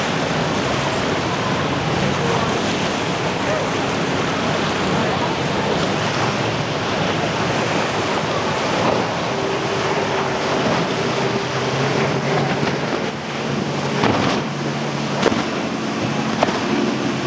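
Breaking surf and wind buffeting the microphone, with the steady hum of a Mercury 250 hp outboard motor on a center-console boat coming through more clearly in the second half. A couple of sharp knocks sound near the end.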